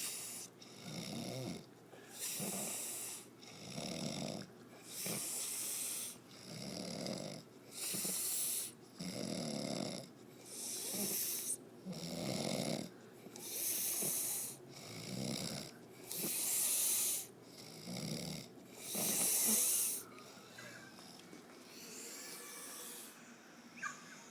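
Steady, rhythmic snoring, about one breath every two seconds. Each breath alternates a low snore with a breathy hiss, and the snoring grows fainter near the end.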